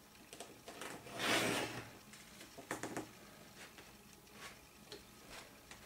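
Craft knife drawn along a metal ruler, slicing diagonally through kraft cardstock: one brief scratchy cut about a second in, with small taps and clicks from the ruler and paper being handled around it.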